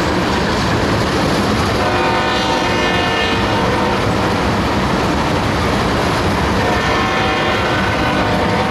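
Loaded freight tank cars rolling past at close range with steady wheel and rail noise. A locomotive horn sounds through it in long blasts, about two seconds in and again near the end.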